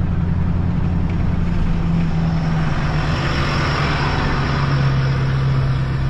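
A vehicle engine running steadily with road and wind noise. The engine note drops in pitch about halfway through and again a little later as the revs fall.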